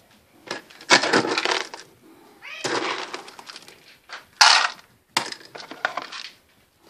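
House cats meowing for their food among several bursts of clattering and rattling as plastic food bowls are handled.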